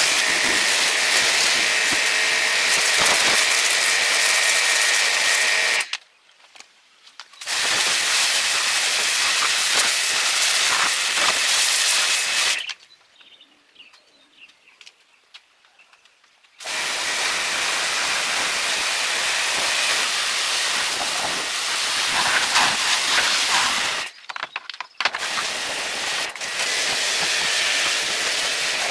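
High-pressure spraying hiss in four long bursts, each starting and stopping abruptly, with short breaks between them.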